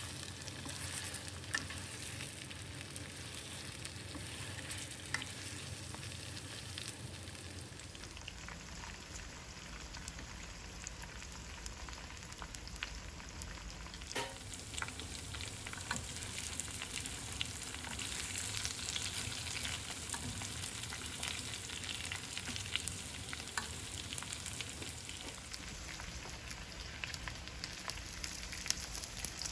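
Food frying in hot oil in a pan: a steady sizzle with fine crackles, and now and then the click or scrape of stirring.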